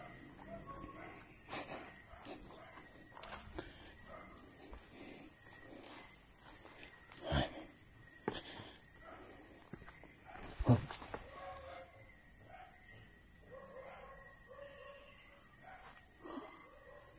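Steady night chorus of crickets, with two brief knocks partway through.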